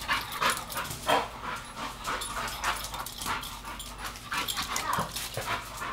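Pit bull scrambling after a laser pointer's dot: a quick, irregular run of clicks and scuffles from its movement.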